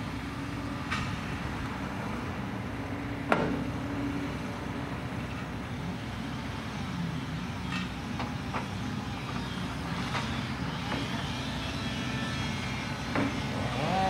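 Sumitomo SH240 log loader's diesel engine running steadily while its boom and grapple move, with one sharp knock about three seconds in and a few fainter knocks later.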